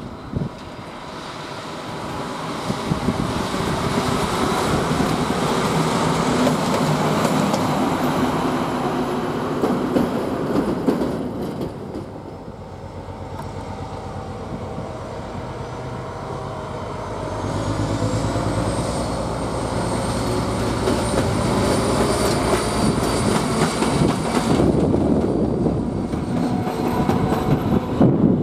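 Diesel locomotive hauling a freight train through a station: the engine runs under a clatter of wheels over the rails. About two-thirds of the way through, a high wheel squeal rises and holds for several seconds.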